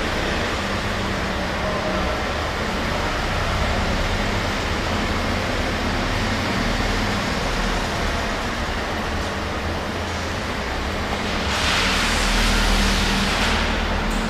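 A steady low mechanical hum over a continuous rumble, swelling into a louder rush of hiss about three seconds before the end.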